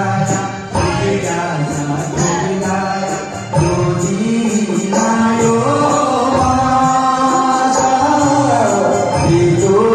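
Live amplified song: a man singing into a microphone over drums and keyboard, with a steady beat.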